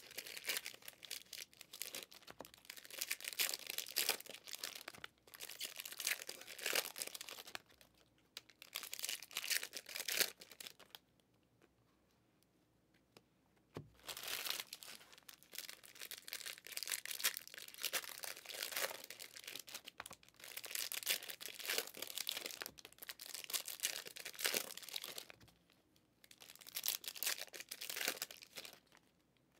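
Foil trading-card pack wrappers being torn open and crinkled by hand, in irregular bursts of crackling with a pause of about three seconds a little before the middle.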